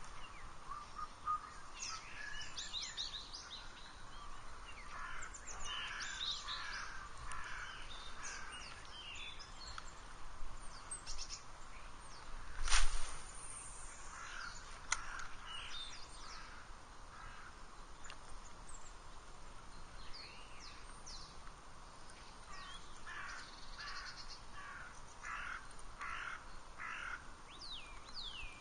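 Wild birds calling and singing, many short chirps and trills with a run of several evenly spaced harsh calls near the end. A single sharp knock about halfway through is the loudest sound.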